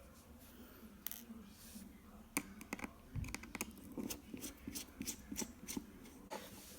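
Faint, irregular light clicks and taps from a small Phillips screwdriver and fingers working at the small screws holding an iPad 2's LCD, several a second from a couple of seconds in.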